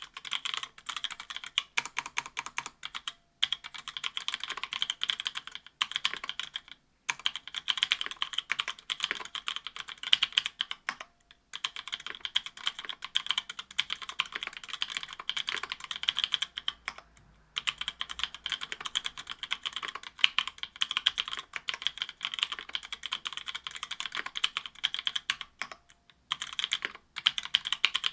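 Continuous fast typing on a mechanical keyboard with stock Kailh Pro Burgundy linear switches (70 g), an aluminium plate, GMK keycaps and lubed stabilizers. The rapid key clacks stop briefly every few seconds.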